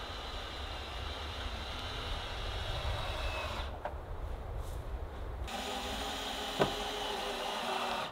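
Cordless power drill running on lumber framing in two stretches, with a short let-up between them and one sharp knock about six and a half seconds in.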